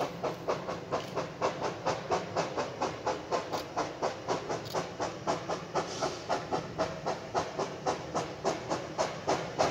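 Two-foot narrow-gauge steam locomotive working out of sight, its exhaust chuffing in a steady rhythm of about three to four beats a second over steam hiss, growing louder toward the end as it approaches.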